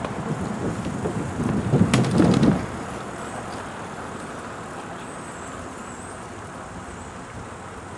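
Steady road-traffic noise from nearby city streets. About two seconds in there is a louder low rumble with a few sharp knocks, then the traffic hum carries on evenly.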